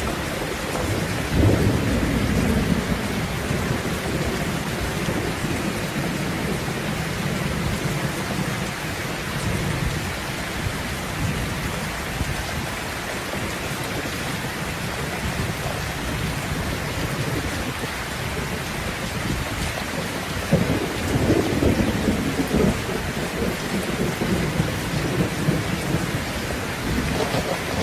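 Steady rain falling, with thunder rumbling low beneath it: one roll swells about a second and a half in, and a longer one comes about two-thirds of the way through.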